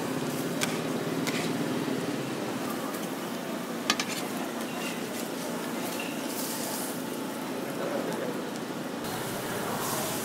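Ramly burger patties wrapped in egg sizzling on a flat steel griddle, with a metal spatula scraping and tapping against the plate; one sharp clack about four seconds in.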